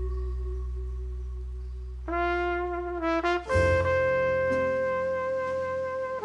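Background music: a held chord fades away, then a melody of long held notes enters about two seconds in, with a deep bass note joining about a second and a half later.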